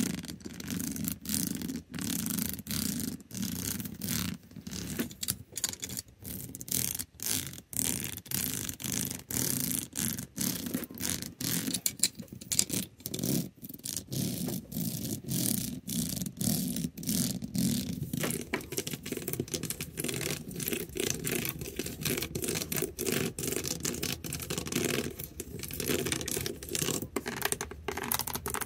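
The backs of fingernails scratching and tapping on a surface in quick, repeated strokes. The tone of the strokes changes about two thirds of the way in, as if a different surface is being used.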